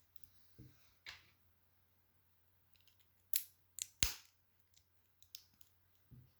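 Plastic Lego bricks being handled and snapped together: scattered light clicks, with three sharp, louder clicks in quick succession a little past the middle.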